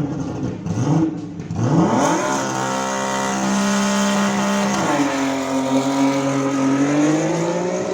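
Audi S2 race car's turbocharged five-cylinder engine at full acceleration. It revs up quickly through two short gears in the first two seconds, holds high, then drops in pitch at a gear change about five seconds in and climbs steadily again.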